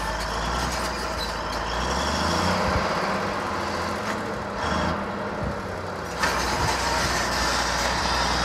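Komatsu D155-1 crawler dozer's diesel engine running steadily, with a few low knocks and a sudden rise in level about six seconds in.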